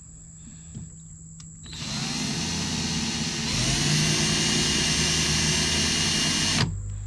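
Power drill spinning a 1/8 inch bit in reverse against the truck's bed wall to cut a starting divot for a pilot hole. It starts about two seconds in, picks up slightly midway, runs for about five seconds and stops abruptly.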